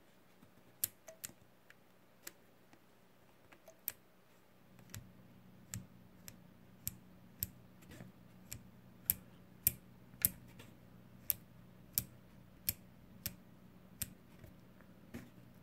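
Rotary range selector switch of an AVO 8 analogue multimeter being turned position by position, each step clunking into its detent. A string of sharp clicks: a few scattered ones at first, then a steady run of just under two a second from about five seconds in.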